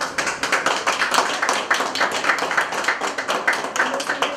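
A small group of people applauding, many overlapping hand claps.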